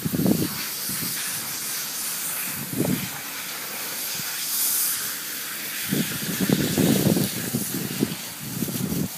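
Dry fallen leaves rustling and crunching as two small dogs scuffle in them, with a steady hiss of rustling and a few louder scuffs: near the start, about three seconds in, and again between six and eight seconds.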